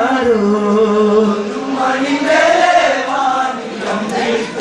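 A group of men singing an Onamkali folk song in unison: a chant-like melody in long held notes that slide from one pitch to the next.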